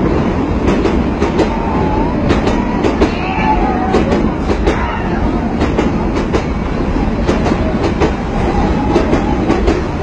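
Moving train running along the track: a dense steady rumble with scattered clicks of the wheels over the rails, and a few faint calls from people riding on it.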